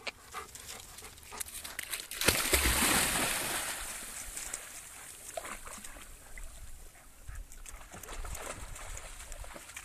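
Water splashing at the beach: a sudden loud splash about two seconds in that fades away over a couple of seconds, among smaller scattered splashes and taps.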